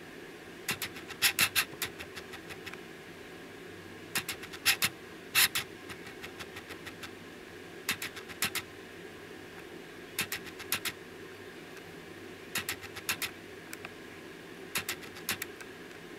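Six quick clusters of sharp clicks, a handful of clicks in each lasting about a second, spaced two to three seconds apart, over a steady faint hum.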